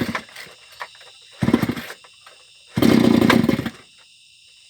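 An engine revved in three short bursts, each dying back between them.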